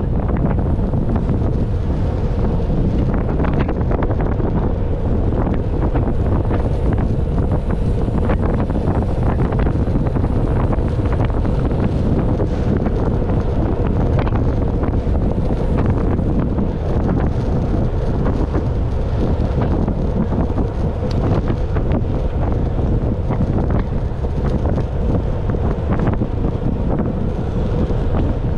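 Steady, loud wind buffeting the microphone, with a faint steady hum underneath.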